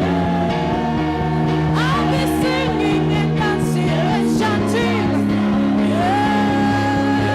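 Live gospel worship music: a worship leader's singing voice held in long, sliding notes over sustained keyboard chords, with a chord change about halfway through.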